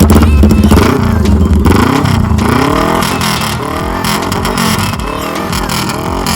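Suzuki GSX400E Katana motorcycle's parallel-twin engine being blipped up and down in a rhythmic 'call', its pitch rising and falling several times in a row.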